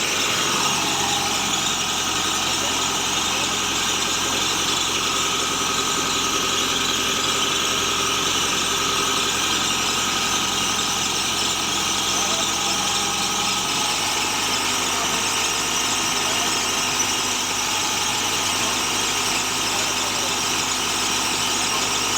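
Horizontal directional drilling rig's engine running steadily under a high whine, its low note stepping up slightly about two-thirds of the way through.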